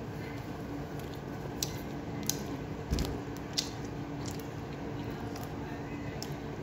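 Close-up mouth sounds of someone eating: wet chewing with a handful of sharp lip-smack clicks, over a steady low hum.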